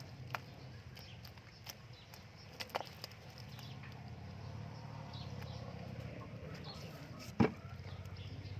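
Live snakehead and catfish flopping and dropping onto a plastic crate: a few scattered knocks, the loudest about seven seconds in, over a low steady hum.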